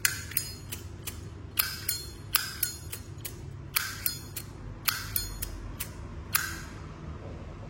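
Zippo lighter lids being flicked open and snapped shut again and again: about a dozen sharp metallic clinks with a brief ring, several in quick pairs.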